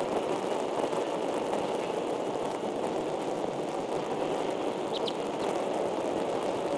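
Steady rushing noise from the outdoor nest-camera microphone, with a brief faint high chirp about five seconds in.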